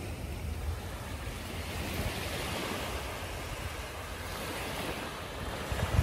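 Gentle surf washing up onto a sandy beach, with a swell of rushing water about two seconds in and another near the end.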